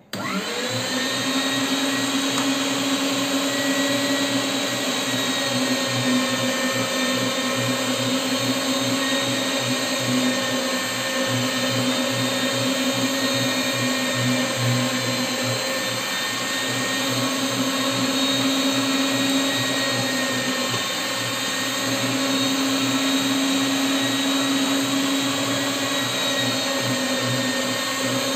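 Electric meat grinder running steadily as it extrudes kibbeh mixture through its mincing plate. The motor rises in pitch as it comes up to speed right at the start.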